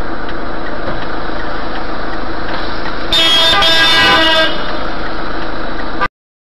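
Steady engine and road noise as heard from a dashcam car, with a car horn honking for about a second and a half midway through. All sound cuts off suddenly about six seconds in.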